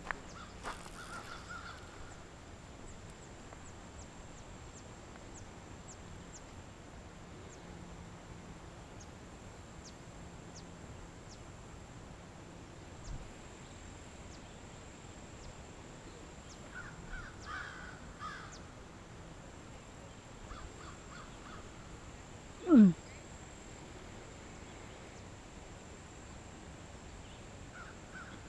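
Quiet outdoor ambience with a few short groups of distant bird calls. About 23 seconds in there is one brief, loud, falling squeak.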